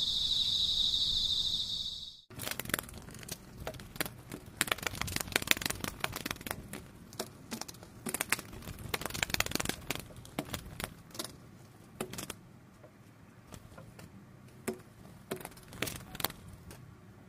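Crickets chirping steadily for about two seconds, cut off abruptly. Then clothing being handled close to the microphone: rustling and crinkling with many sharp clicks, busiest in the middle and thinning out toward the end.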